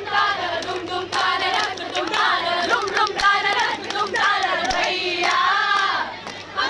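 Group of women singing together in chorus, with hand clapping.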